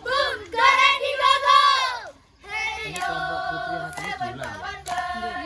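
A group of children chanting and singing a team yell in unison, their voices rising and falling, then holding longer sung notes after a brief break about two seconds in, with a few hand claps.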